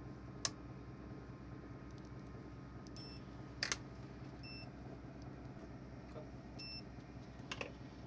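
Fiber optic fusion splicer giving three short, high electronic beeps, with sharp clicks as it is handled: one about half a second in, a double click near the middle and another near the end. A steady low hum runs underneath.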